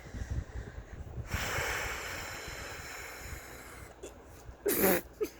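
A woman's hiccups during a long, unbroken bout: a long breath a second or so in, then one loud, sudden hiccup near the end with a smaller catch just after it.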